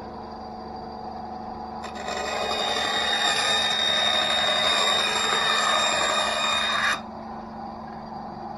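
Einhell TC SB 200/1 benchtop bandsaw running with a steady hum, its blade cutting through a plywood sheet for about five seconds: the cutting noise, with a high whine in it, comes in sharply about two seconds in and stops abruptly.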